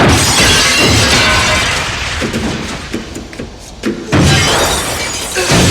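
Glass smashing: a loud shattering crash right at the start and a second one about four seconds in, each trailing off into falling debris.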